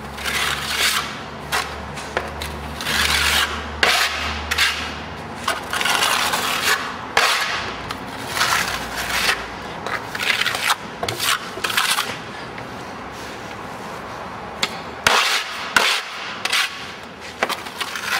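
Plasterer's trowel scraping decorative concrete off a hawk board and spreading it across a block wall in repeated irregular strokes, laying on a very thin tight coat. A few sharper knocks come near the end.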